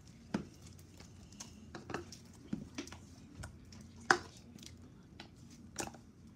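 White slime being stretched, squished and dropped onto a tabletop: scattered wet clicks and pops, with one sharper smack about four seconds in.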